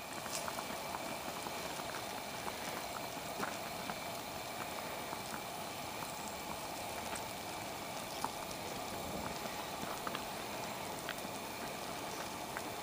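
Chicken, potatoes and carrots simmering in their juices in an open cast-iron Dutch oven over charcoal: a quiet, steady bubbling sizzle with scattered small pops.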